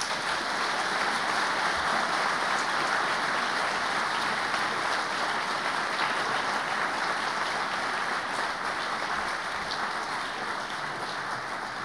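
Audience applauding, a dense steady clatter of many hands that slowly dies down over the last few seconds.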